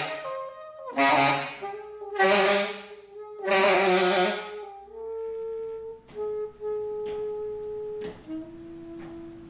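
Solo alto saxophone music: three loud, harsh blasts in the first half, then softer held notes that step down in pitch.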